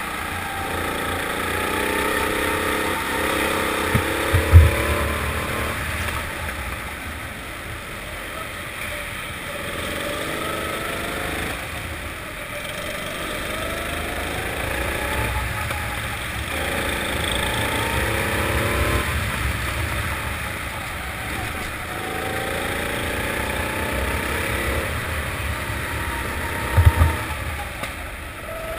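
Four-stroke kart engine heard onboard, revving up in a rising sweep out of each corner and falling back as it lifts for the next, over and over. Two short low thumps, one about four seconds in and one near the end, are the loudest sounds.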